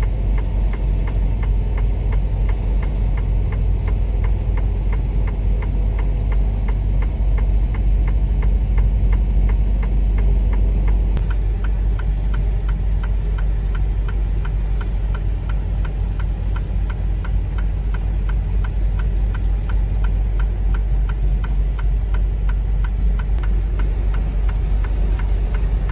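Semi-truck's diesel engine running, heard inside the cab, with a steady ticking about twice a second. The engine note changes about eleven seconds in.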